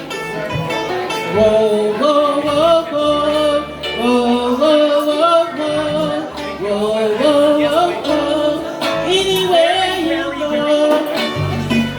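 A song: a voice singing a stepping melody over instrumental accompaniment with a bass line.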